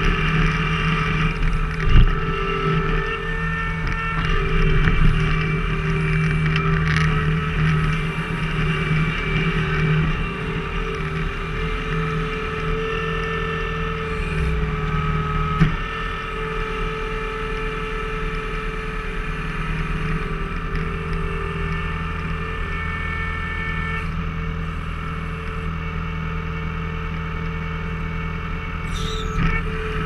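Skid steer engine running steadily under hydraulic load while it works a log-splitter attachment, its note shifting a little around ten and sixteen seconds in. A sharp knock about two seconds in and another about midway.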